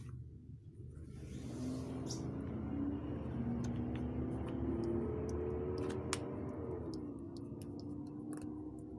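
A motor vehicle engine accelerating, its pitch climbing in steps over several seconds, then dropping and holding steady from about seven seconds in. A few sharp clicks of pliers on the mold come over it.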